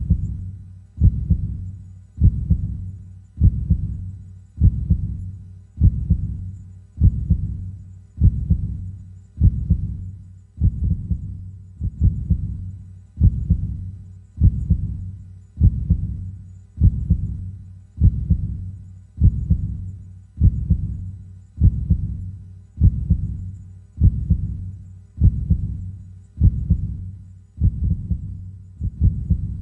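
Heartbeat: a slow, steady lub-dub of deep double thumps, a little under one beat a second.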